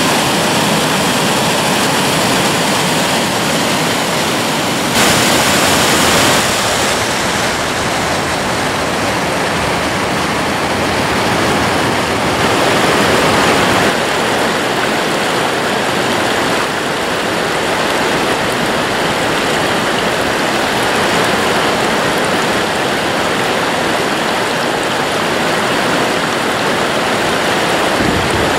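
Steady rush of a wide, low ledge waterfall and shallow rapids running over flat rock shelves: a loud, even sound of falling and flowing water.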